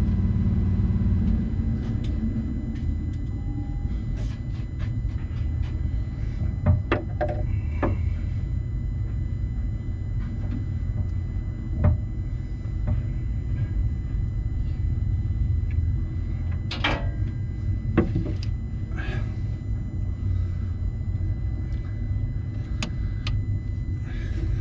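Skid steer engine running with a steady low rumble, and a higher hum that stops about a second in. Scattered sharp metallic clicks and knocks come from tools working on the hydraulic pump's swashplate angle sensor.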